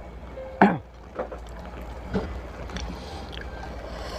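Close-miked eating noises: a man chewing and working his mouth over food, with one loud short mouth sound about half a second in and softer ones after, over a low steady hum.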